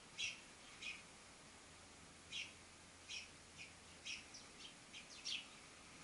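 House sparrows chirping: about a dozen short, separate chirps at uneven intervals, the loudest just after the start and several close together near the end.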